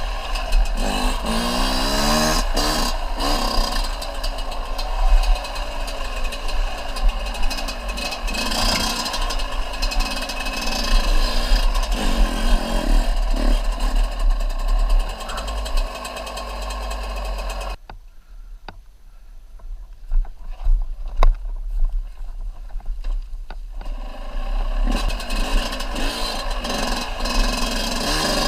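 Dirt bike engine running and revving, with rushing noise and low buffeting on the microphone. About eighteen seconds in the sound drops away for some six seconds, leaving faint clicks, then comes back.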